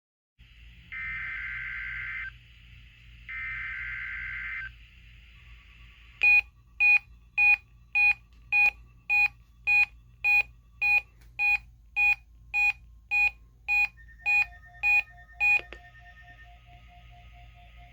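NOAA Weather Radio SAME data header: two short bursts of buzzy two-tone digital data. Then a weather alert radio receiver beeps its alarm, triggered by the weekly test: about seventeen sharp, even beeps a little under two a second, stopping abruptly.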